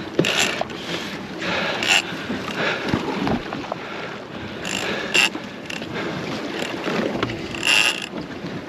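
Wind and choppy sea water splashing against a small boat's hull, with several short, sharper splashes.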